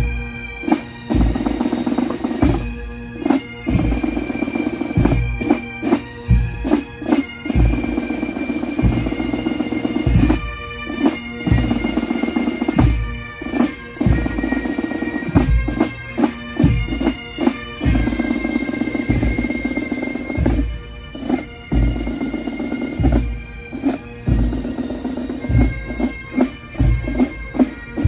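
Pipe band playing: bagpipes sound a steady drone under a chanter melody, with bass drum beats struck close by at a regular pace throughout.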